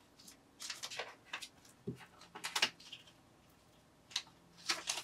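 A Canadian polymer $20 banknote and a clear plastic cash envelope rustling and crinkling as they are handled, in a handful of short crinkles.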